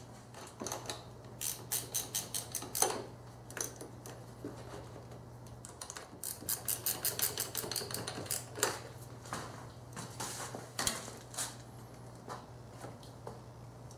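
Ratchet wrench clicking in two quick runs of about eight clicks a second while battery hardware is tightened, with scattered metallic clanks and knocks of tools and cables.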